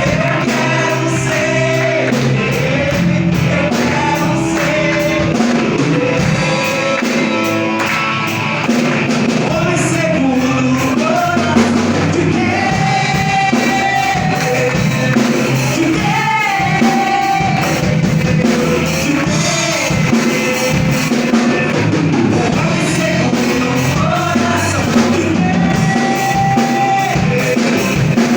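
A church praise band playing and singing a gospel song: sung voices over drum kit and accompanying instruments, loud and unbroken.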